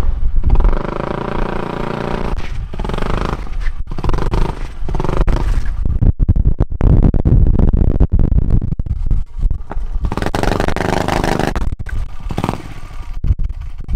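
Supercharged engine of a quarter-scale RC car revving up and down as the car drives, with a few brief drops where the throttle is let off.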